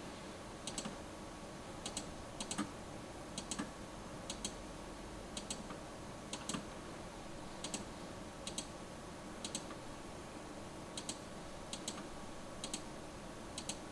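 Light, irregular clicks of a password being entered, about one or two a second, many in quick pairs.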